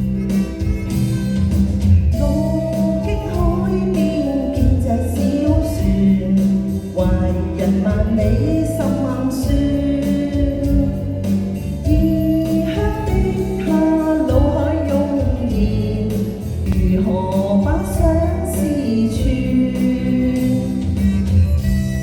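Music from a slow Cantonese pop ballad: a wavering melody line over sustained bass notes and chords, with no lyrics sung.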